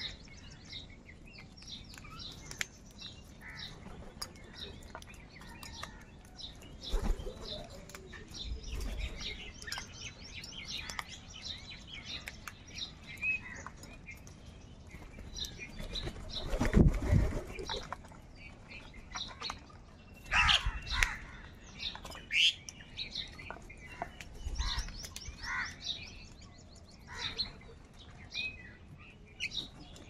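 A flock of house crows feeding, with busy, rapid chirping and calls throughout and a few louder harsh calls. A few dull thumps stand out, the loudest a little past halfway.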